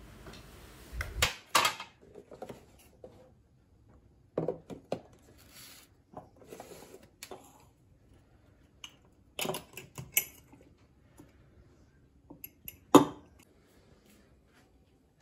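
Kitchen clatter of plastic food-storage boxes and a glass storage jar being handled on a countertop: scattered clicks and knocks, the loudest near the end.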